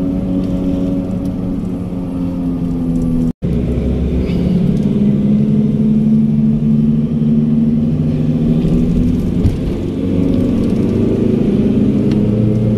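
Vehicle engine running steadily under way, with road rumble, heard from inside the cabin. The sound cuts out for an instant about three seconds in.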